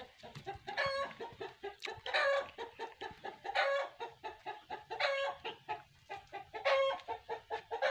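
Chickens clucking: a run of short clucks with a longer, louder call about every second and a half.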